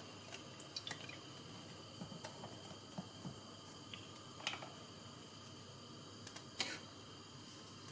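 Quiet kitchen handling: a few light clicks and taps, the clearest about four and a half seconds in and again near six and a half seconds, over a steady low hiss.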